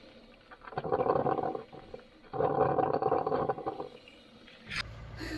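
Three loud, rough vocal calls, about a second each with short gaps between. Near the end they give way to a steady low engine hum.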